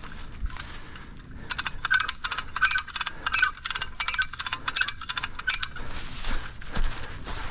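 Rapid, ratchet-like mechanical clicking that starts about a second and a half in and cuts off about four seconds later.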